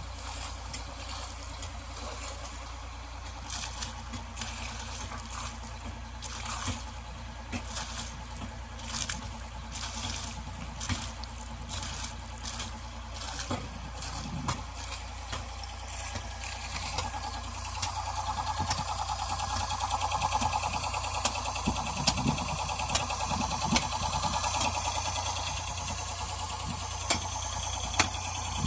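Air compressor running with a steady hum while compressed air is blown in short rushes, then louder and more continuously from about two-thirds of the way in.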